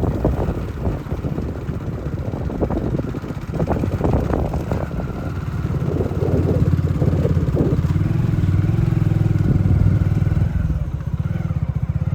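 A small engine running with a fast, even firing pulse, with clattering knocks during the first few seconds; about six seconds in it becomes louder and steadier.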